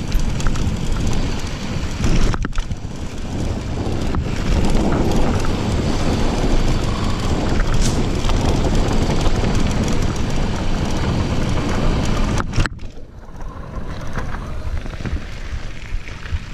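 Wind buffeting the microphone and the rumble of mountain bike tyres rolling down bare rock, with the bike rattling. The noise drops suddenly about thirteen seconds in and goes on more quietly.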